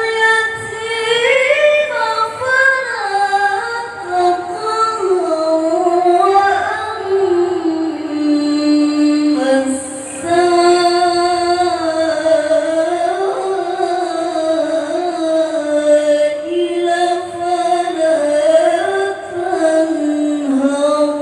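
Melodic Qur'an recitation (tilawah): one high voice chanting long, ornamented phrases with drawn-out notes, pausing briefly for breath about ten seconds in.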